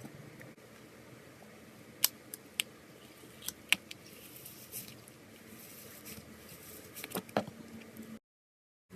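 Slime being worked by hand, giving short, sharp sticky clicks and pops: a few about two to four seconds in and another cluster near the end. The sound drops out entirely for under a second just before the end.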